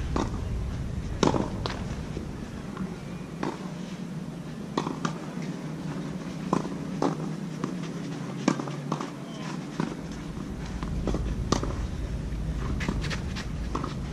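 Tennis rally on a clay court: sharp pops of a ball struck by racquets and bouncing, at irregular intervals, with the loudest about a second in, at eight and a half seconds and near twelve seconds. Wind rumbles on the microphone underneath, heavier at the start and in the last few seconds.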